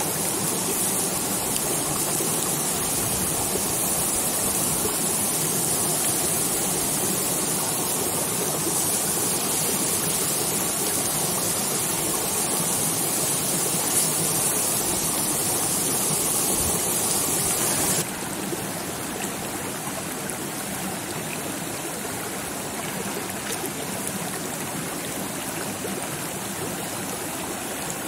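Steady rushing of a flowing stream. Its level drops abruptly about two-thirds of the way through, then carries on steady.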